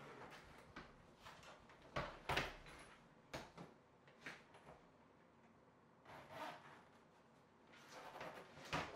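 Quiet handling sounds: a few light clicks and knocks from about two to four and a half seconds in and again near the end, with soft rustling between, as things are moved, opened and set down.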